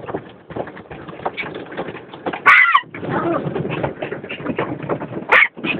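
Small Maltese puppy barking in alarm at the car wash: two sharp, high barks about 2.5 s and 5.3 s in. Between them, the car wash's water spray and brushes clatter against the car.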